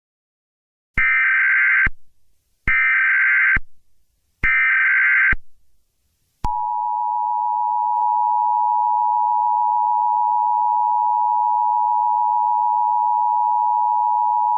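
Emergency Alert System broadcast tones: three short bursts of shrill digital header data, each just under a second, then the steady two-tone EAS attention signal, held for about eight seconds before it cuts off.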